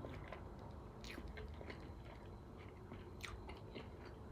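Biting into and chewing a sauced fried chicken wing close to the microphone, with a few sharp crunches among softer wet chewing.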